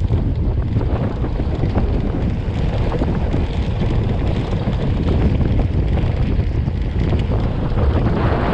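Steady, loud wind rumble buffeting the microphone of a camera riding on a mountain bike, mixed with the noise of the ride along a dirt road.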